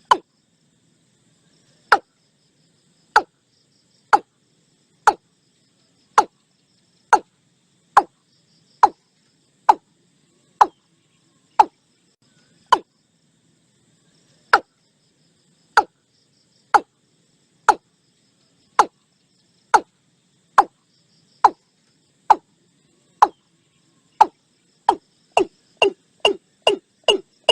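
Watercock calling: a series of short, hollow notes, each falling in pitch, about one a second, quickening to about three a second near the end.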